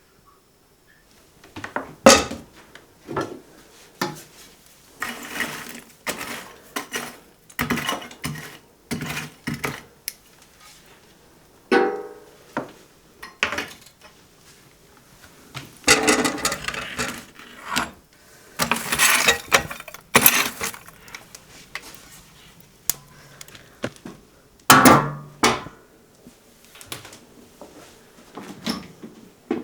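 Dishes, pots and cutlery being handled: irregular knocks, clinks and clatters with short quiet gaps between them. The loudest knocks come about two seconds in and about twenty-five seconds in, and there is a brief ringing clink about twelve seconds in.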